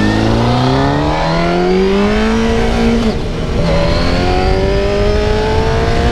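1993 Honda CBR900RR's inline-four engine pulling hard through the gears: revs climb steadily, drop sharply at an upshift about three seconds in, then climb again. Wind rushes past underneath.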